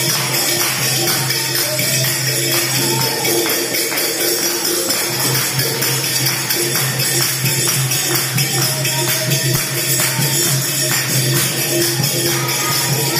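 Sankirtan: a group chanting a devotional song, with hand claps and jingling percussion keeping a steady beat.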